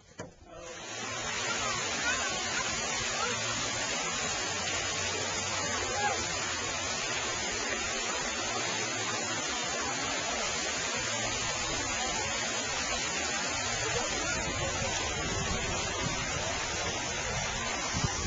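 Swimming pool ambience: a steady wash of splashing water with children's voices mixed in, starting abruptly under a second in.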